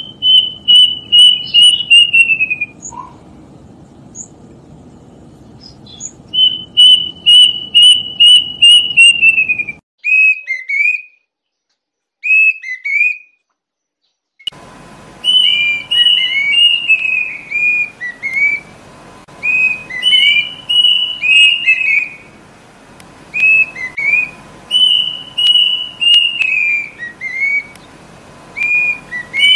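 Kedasih cuckoo singing: runs of loud whistled notes, each run of about eight notes sliding down in pitch, repeated with short pauses. Partway through, a noisier recording takes over, with a faint steady hum underneath and the notes overlapping more closely.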